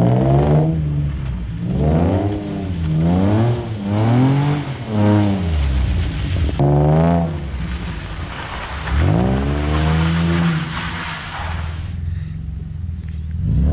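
Car engine revving hard during a drift, its pitch rising and falling several times as the throttle is worked. About halfway through, a loud hiss of tyres spinning on the wet road joins it for several seconds.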